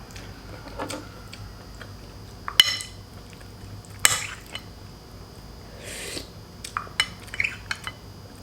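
Spoon and fork clinking and scraping against a bowl and plate as eating begins, with a few sharp clinks.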